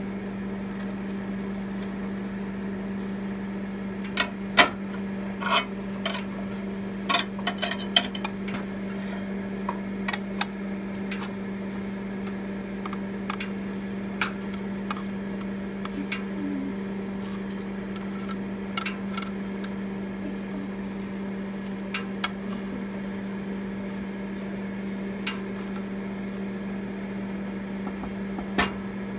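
Microwave oven running on its air-fry setting, a steady hum. Over it, metal tongs click and clack against the rack and dish as the food is turned, in a quick cluster about four to eight seconds in and a few scattered clicks later.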